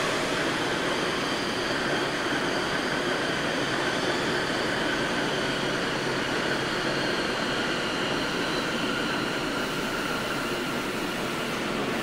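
Sendai Subway 1000N-series train running along the Namboku Line, heard from inside the car: a steady rumble of wheels and running noise with faint high-pitched tones above it.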